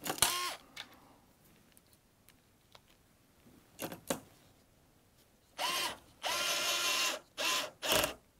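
Cordless electric screwdriver running in short bursts as it tightens bolts: one whirring spin-up right at the start, a couple of brief blips about 4 seconds in, then several bursts in quick succession near the end, the longest about a second.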